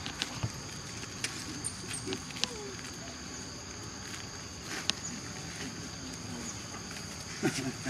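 Steady high-pitched insect drone of a tropical forest, with scattered light clicks and plastic-bag rustles as macaques are handed vegetables.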